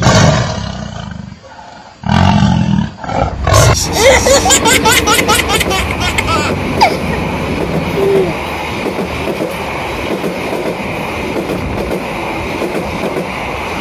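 Tiger roar sound effect, twice in the first three seconds. Then a passenger train passes close by: a steady rush of wheels on the rails.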